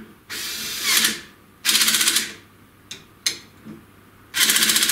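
Cordless drill-driver tightening the cap screws of a CNC router's spindle mount bracket in three short bursts of about a second each. The second and third are a rapid clatter: the driver's torque clutch slipping as the screws reach its set torque.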